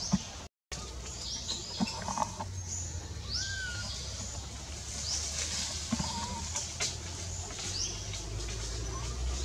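Birds chirping in the forest canopy: short, high sweeping chirps every second or two, with a few lower whistled glides, over a steady low rumble. The sound cuts out for a moment about half a second in.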